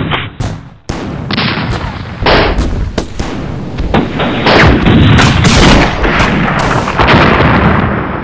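A dense, loud barrage of gunfire and explosion sound effects, one blast piled on another, its tone changing abruptly every second or so as different recordings are cut together.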